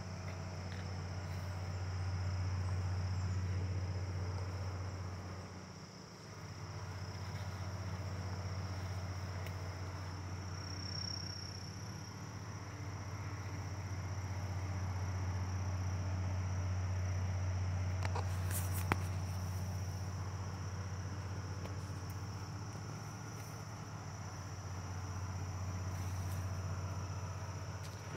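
Steady high-pitched trilling of a late-summer insect chorus, over a louder low rumble that swells and fades. A brief click about two-thirds of the way through.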